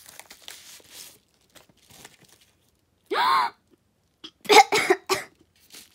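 Faint rustling of a padded paper mailer as an item is drawn out, then a short voiced exclamation about three seconds in and a quick run of three or four short vocal bursts a little later.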